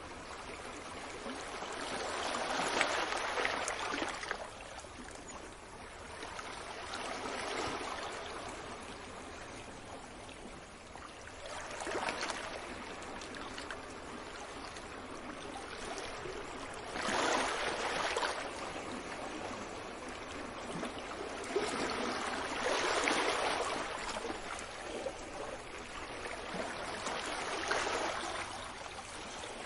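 Ocean waves washing onto a beach: a steady hiss that swells and fades with each wave, about one every five seconds.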